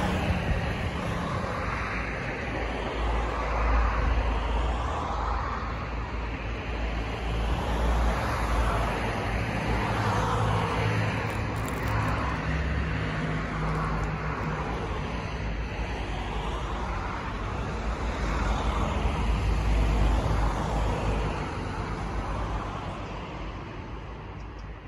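Road traffic: cars passing one after another, the noise swelling and fading every few seconds over a steady low rumble.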